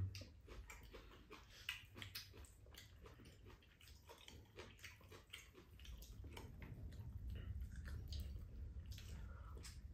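Quiet table-eating sounds: faint chewing and scattered small clicks of metal chopsticks against dishes, over a low rumble that grows a little louder after about six seconds.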